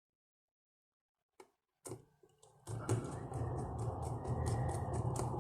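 A small electric screwdriver runs with a steady low hum and a regular clicking, driving the laptop heatsink's retaining screws. It starts about two and a half seconds in, after a couple of short handling clicks.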